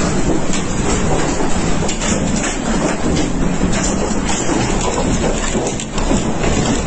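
Tornado's roar: a loud, continuous rushing of violent wind, with scattered knocks and crackles throughout.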